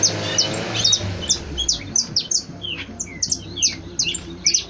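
Peruvian canary singing: a quick run of short, high chirps and down-slurred notes.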